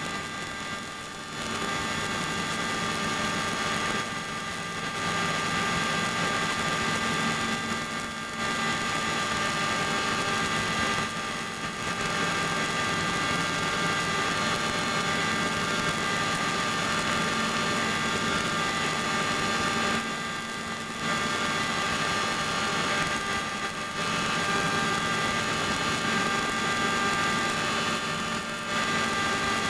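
Small helicopter's engine and rotor running steadily, heard from inside the cabin: a continuous drone with several constant whining tones.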